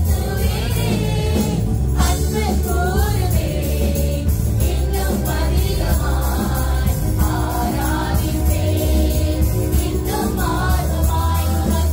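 Tamil Christian praise and worship song: voices singing a melody over a live band, with a strong bass and a steady drum beat.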